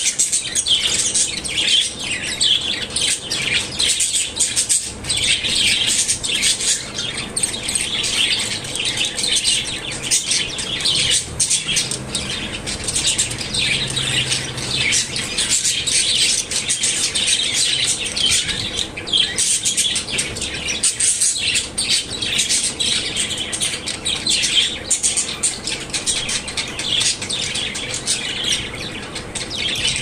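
Budgerigars chirping and chattering without a break, many quick high chirps overlapping.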